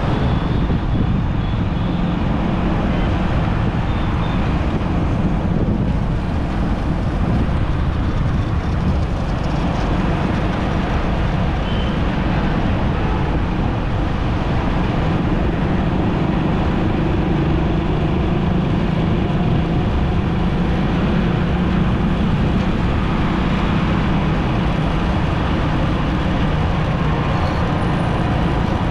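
Steady city road traffic heard while driving: engines and tyre noise with a constant low rumble and no distinct horns or sudden events.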